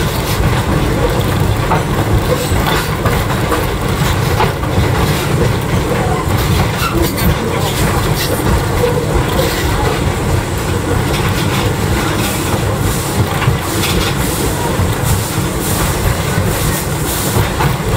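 Edison steam locomotive and its train running at speed, heard from the car right behind the engine: a steady rumble with wheels clicking irregularly over the rail joints.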